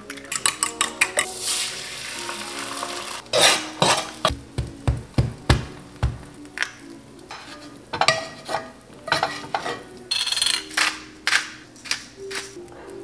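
Cooking scrambled eggs: clicks and knocks of utensils on a bowl and a cast-iron skillet, eggs sizzling in the hot pan, and a pepper grinder grinding near the end, over quiet background music.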